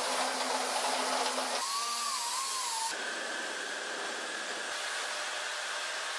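Steady hiss of a hand-held power tool removing excess epoxy from a generator stator's end windings, giving way a few seconds in to steady workshop noise with a faint even whine.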